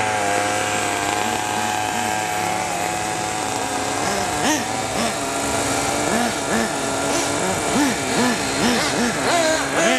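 RC model helicopter's engine and rotor running with a steady high whine. From about four seconds in, a small model engine revs up and down in quick rises and falls, about twice a second.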